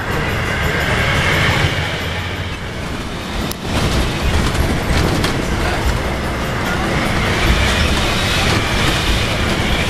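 Hino bus engine and its 'jet' aftermarket exhaust running while the bus is under way, heard from inside the passenger cabin: a steady low rumble with a high whine over it. The sound breaks off briefly about three and a half seconds in.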